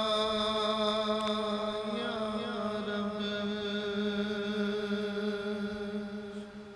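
A man singing a naat (Urdu devotional poem) in one voice with no instruments, drawing out one long held note that wavers briefly about two seconds in and fades near the end.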